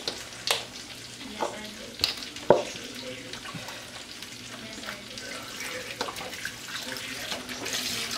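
Beef stock pouring from a carton into a glass baking dish of cubed vegetables: a steady splashing trickle, with a few light knocks in the first three seconds.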